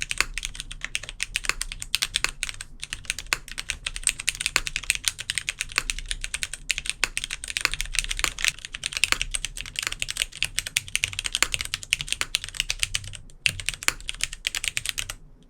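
Fast, continuous typing on a custom mechanical keyboard fitted with DCS-profile keycaps, giving a crisp, clacky keystroke sound. There is a brief pause about 13 seconds in, and the typing stops just before the end.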